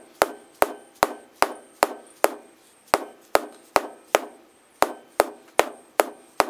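Rubber mallet striking a car windshield over and over: about fifteen sharp knocks at roughly two and a half a second, each with a short ringing decay from the glass, with two brief pauses along the way.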